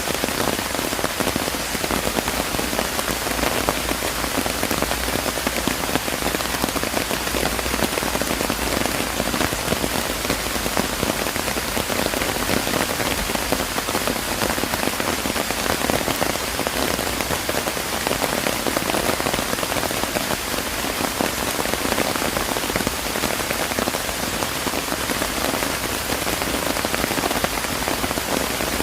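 Steady rain falling, a dense, even patter of drops that holds without let-up.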